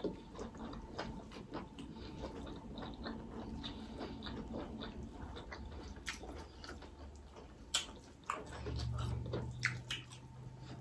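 Close-up eating sounds: chewing and lip smacks, with fingers mixing rice and curry on the plates, in a stream of short irregular clicks. A low steady hum comes in near the end.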